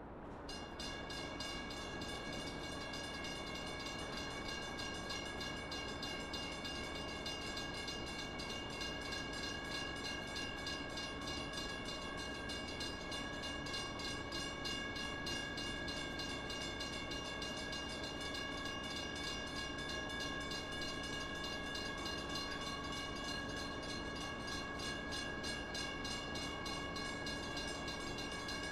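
Train bell ringing continuously with fast, evenly repeated strikes that hold a steady set of ringing tones. It starts about half a second in, over a constant background noise.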